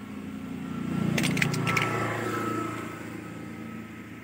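A vehicle engine swells up and fades away over about three seconds. In the middle comes a quick run of sharp clicks as pliers grip and pull the stem of a mushroom plug out through a tubeless tyre's puncture.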